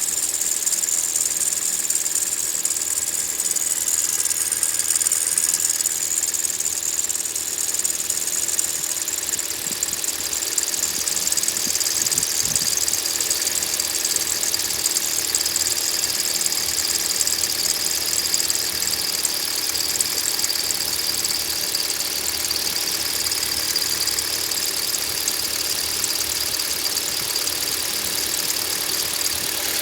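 Kia Rio 3 / Hyundai Solaris engine running with its poly-V alternator belt giving a steady high-pitched squeal that drifts somewhat lower in pitch partway through. The squeal comes from the belt itself, not the pulleys or bearings: a worn belt that wants replacing.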